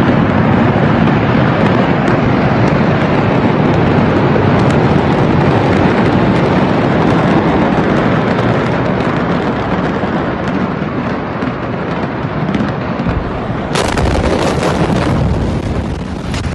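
Loud, steady roar of a large port fire and explosions close by, with a dense crackle of small pops throughout. About fourteen seconds in, a heavier blast swamps the recording just before it cuts off.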